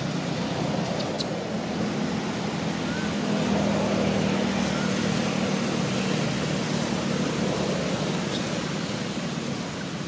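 Steady low motor hum of distant road traffic, with a few faint short chirps.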